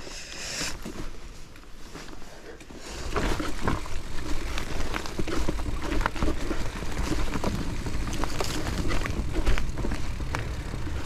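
Mountain bike riding over a rough natural trail: the bike rattles and knocks over a low rumble of tyres and wind, much louder from about three seconds in.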